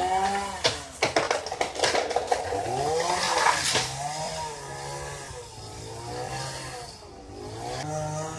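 Chainsaw running high in a tree, its engine revving up and dropping back again and again. A flurry of sharp cracks comes between about one and two seconds in.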